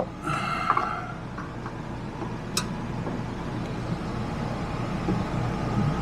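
Hand screwdriver turning out the sheet-metal screws that fasten an RV furnace, with a short metallic scrape in the first second and a couple of sharp clicks, one about two and a half seconds in, over a steady background hum.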